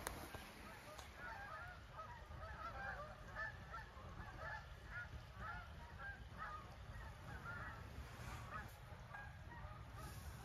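A flock of geese honking: many short, overlapping calls.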